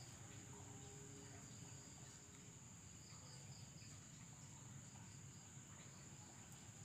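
Near silence with the faint, steady high trill of crickets.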